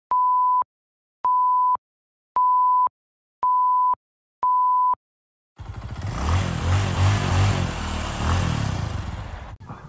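Five identical electronic beeps, each about half a second long, about one a second, in a countdown pattern. Then a loud rumbling whoosh swells up, fades, and cuts off sharply near the end.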